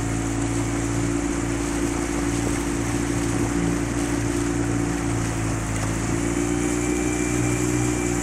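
Outboard motor of a small boat running steadily at low speed, a constant hum with a slight waver in pitch, over a rush of water and wind noise.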